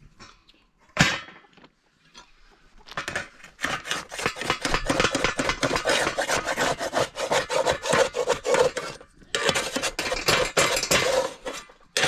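A single sharp knock about a second in, then fast rhythmic scraping strokes that run for several seconds, break off briefly a little after nine seconds and start again.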